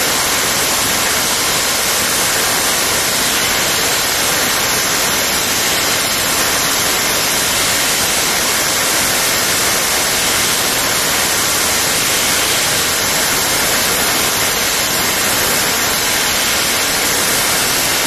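Shearing handpiece on a motor-and-drive-shaft shearing plant running steadily as the belly wool is shorn off a lamb: an even, loud hiss-like noise with no clear pitch.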